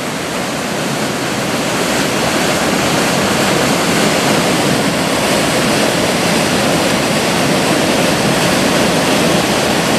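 Whitewater rushing steadily through narrow rock potholes and a channel in a river canyon: a continuous, even rush of falling and churning water.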